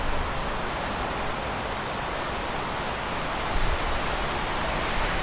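Steady rushing outdoor noise, with uneven low rumbling gusts of wind buffeting the microphone.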